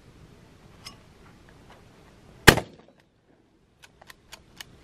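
A single 12-gauge shotgun blast from a Mossberg 500 pump shotgun about halfway through, with a short ring-out. Several light sharp clicks follow near the end.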